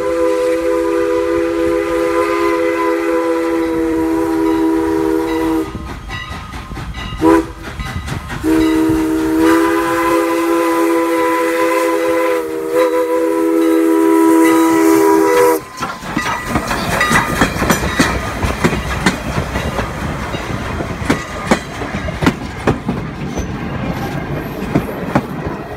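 Steam locomotive No. 89's whistle blowing for the crossing, several pitches sounding together as one chord: a long blast, a brief short one, then another long blast that stops about fifteen seconds in. Then the locomotive and its passenger coaches roll slowly past, wheels clicking over the rails.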